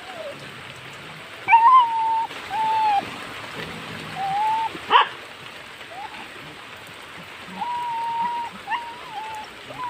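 Hunting dogs whining and yelping, a string of high, drawn-out calls with one sharp bark about halfway through, over a steady hiss.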